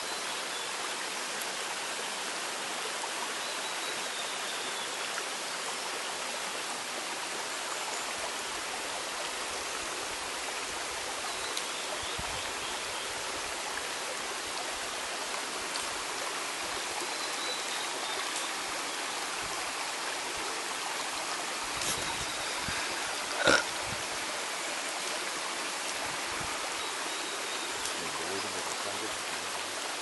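Mountain stream water running over rocks, a steady rushing hiss. About two-thirds of the way through, a single sharp knock is the loudest sound, and a few faint high chirps come and go.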